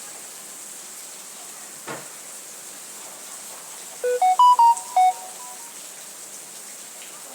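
Steady hiss of rain, with a short electronic melody of five or six pure notes about four seconds in, typical of a phone ringtone or notification chime; the tune is the loudest thing heard.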